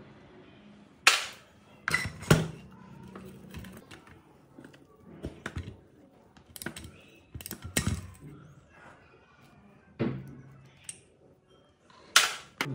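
Metal hand tools clicking and knocking against an old electric water pump motor being taken apart: long-nosed pliers at the wiring, then a socket nut driver on the end-cover bolts. About seven sharp, irregular clicks, with quieter handling noise between them.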